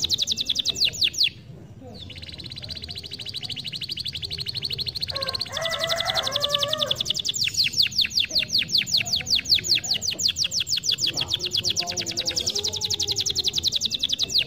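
Domestic canary singing a long song of rapid high trills, the notes changing from one run to the next, with a brief pause about a second and a half in and a lower warbling phrase around the middle.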